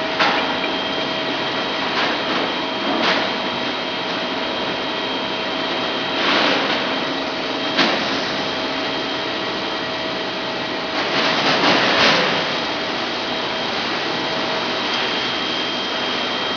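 Steady hum of running machinery with a faint steady whine. Over it come a sharp click and several short crackling rustles as hot-stamping foil is handled and threaded over the rollers.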